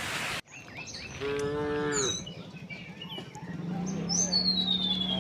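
Cattle mooing: one cow gives a single moo about a second in, and a lower, longer moo starts about two thirds of the way through and grows louder toward the end. Faint bird chirps and a long falling whistle sound between the moos, and a steady hiss cuts off abruptly just after the start.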